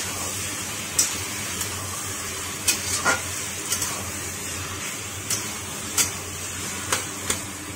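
Spatula stirring and scraping a wet taro-leaf mixture in a metal kadai, with sharp scrapes and knocks against the pan about once a second over a steady frying sizzle.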